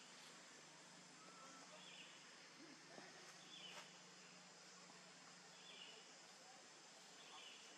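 Faint forest ambience: a steady insect drone with a bird repeating a short chirp about every two seconds.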